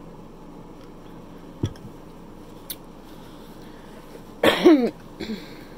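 A woman coughs once, loudly, about four and a half seconds in, with a smaller cough or throat-clear right after it. A light knock comes about one and a half seconds in.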